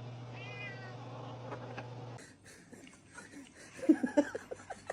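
Two short, high meows from a cat over a steady low hum. After a cut, a quick run of short, sharp sounds like giggling starts about four seconds in.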